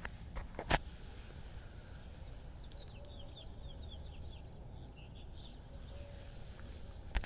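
Outdoor background with a steady low rumble, two sharp knocks in the first second, and a quick string of small bird chirps through the middle.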